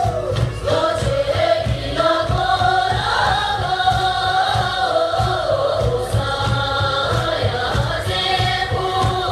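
Sherpa dance song sung by a group of voices, over a steady low beat.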